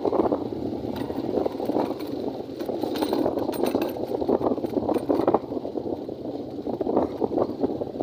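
Ride noise from a vehicle driving over a rough brick-paved road: a steady rushing rumble with constant small rattles and clinks from the vehicle jolting over the bricks.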